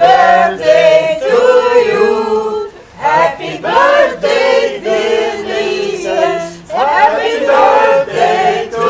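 Several voices singing together, holding notes in a steady tune, with two short breaks between phrases.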